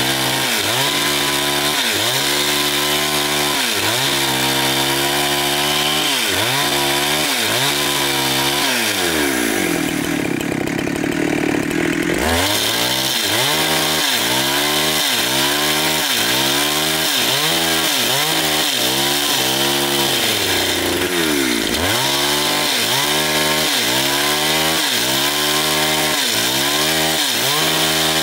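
Chainsaw cutting through a very large log, its engine pitch dipping and recovering in a steady rhythm about one and a half times a second. About ten seconds in it holds a steady high pitch for a couple of seconds, then the rhythmic dipping resumes.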